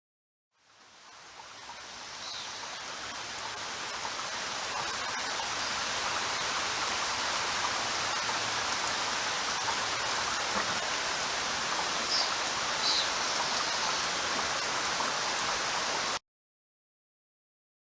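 Steady rain hiss, fading in from silence over the first few seconds, then cutting off suddenly near the end.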